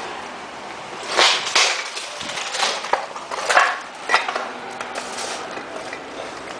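Irregular clattering of metal and hard debris: a handful of sharp clanks and scrapes, the loudest between about one and four and a half seconds in.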